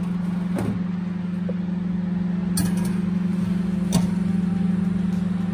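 Panasonic convection microwave oven humming steadily with its door open, while a ceramic baking dish knocks lightly against the wire rack inside as it is set down. There are three knocks; the loudest comes about four seconds in.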